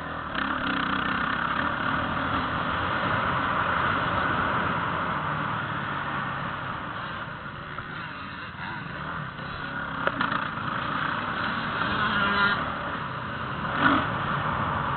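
Motocross bike engine running and revving as the bike rides over a dirt track, heard from a camera mounted on the bike. Its pitch rises and falls, with a few sharp knocks in the second half, the loudest near the end.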